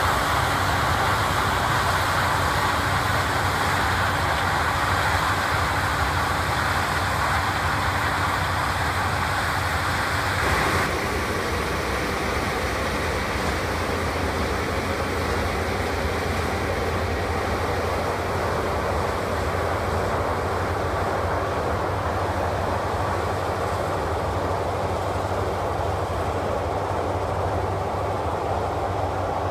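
Claas Lexion 760 TerraTrac combine harvester running steadily while harvesting maize with a corn header: a continuous mechanical drone. About ten seconds in it drops slightly in loudness and some of its steady tones stop.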